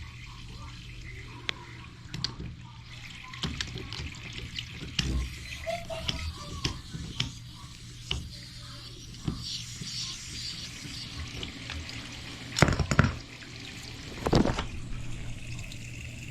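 Water running steadily into an open toilet drain at the floor flange, a test for a blockage; it drains without backing up. Scattered small clicks, with two louder knocks near the end.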